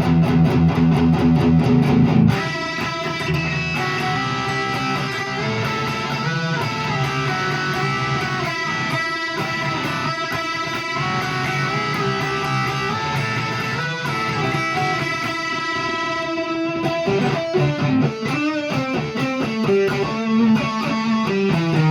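1989 Fender HM Strat electric guitar played through a Peavey Classic 50 tube amp into a Marshall 1965A 4x10 cabinet. Loud low chords for about the first two seconds, then a quieter passage of ringing, sustained notes, with rhythmic chord playing building up again near the end.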